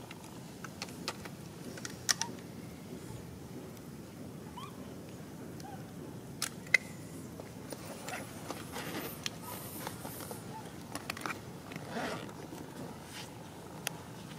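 Steady outdoor background with scattered sharp clicks and taps. The loudest click comes a little before the middle, together with a brief high squeak.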